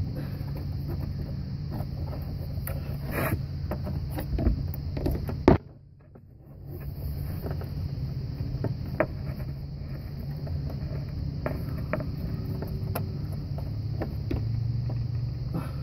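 Scraping and clicking of hands working a coolant hose and its clamp off a VW Beetle 1.8T's auxiliary water pump, over a steady low hum. A sharp click comes about five seconds in, then a moment of quiet.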